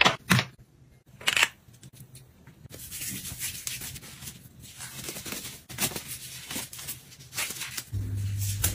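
Thin clear plastic disposable gloves crinkling and rustling as they are handled and pulled onto the hands, after a couple of light taps near the start.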